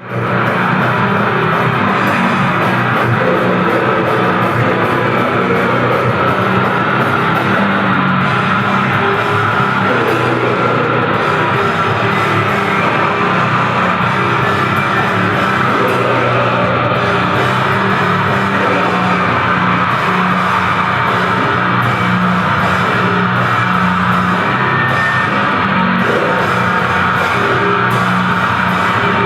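Grindcore band playing at full tilt: heavily distorted guitar and bass with dense, fast drumming, in a loud, unbroken wall of sound that comes in abruptly at the start.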